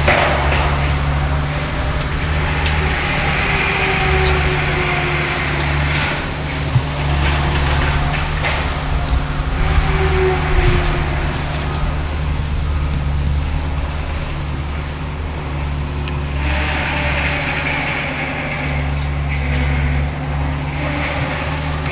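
Motor vehicle engine running steadily, with a low rumble and road and wind noise, as heard riding in it.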